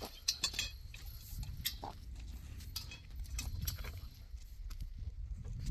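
Scattered light clinks and knocks of a metal pipe tent frame being handled and fitted together.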